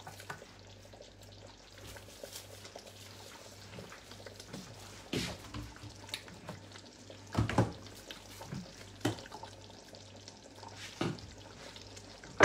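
A pot cooking on the stove with a faint sizzle, and a spoon knocking against the pot five or six times, a second or two apart, as it is stirred. A low steady hum runs underneath.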